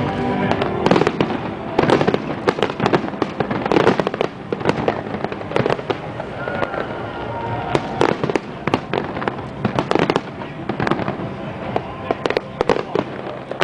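Aerial fireworks shells bursting in quick succession: a dense, irregular run of bangs and crackles, heaviest in the first few seconds and again near the end, with music playing faintly underneath.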